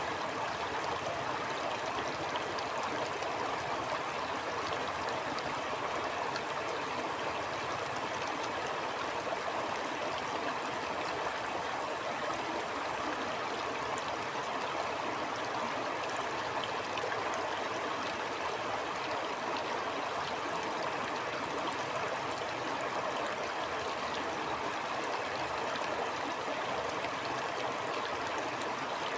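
Stream flowing steadily: an even, unbroken rush of running water.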